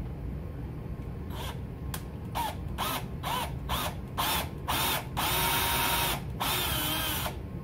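Power drill with a 3/16-inch bit boring a shallow hole into the plastic rail of a Nerf Stryfe blaster. It starts with about eight short trigger pulses, the motor whine rising and falling with each, and ends with two longer steady runs.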